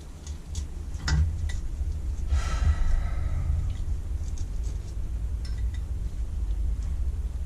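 Light metallic clicks and a brief scrape with a slight squeal, from hand tools working on a carburettor during disassembly, over a steady low hum.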